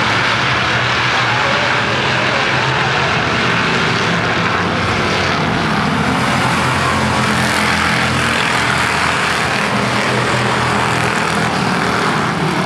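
Street stock race cars racing around an oval track, several engines running at once in one loud, steady sound.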